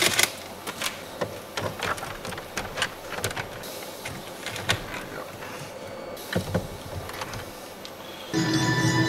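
Irregular clicks and rustles of cables and plastic dash parts being handled as RCA leads are threaded down behind the dashboard. About eight seconds in, the newly installed head unit powers up and sound suddenly starts from the car's speakers.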